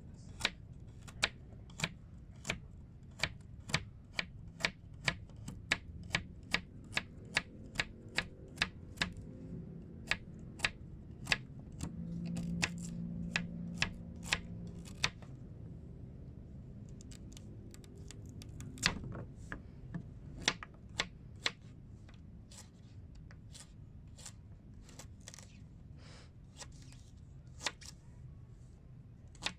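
A quick series of sharp clicks or taps, about two a second for the first half, then sparser, over a low steady hum.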